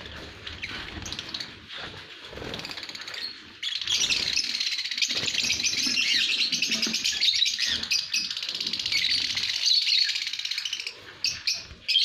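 A flock of caged lovebirds chattering and chirping all together. The flock chatter grows much louder about a third of the way in and drops back shortly before the end.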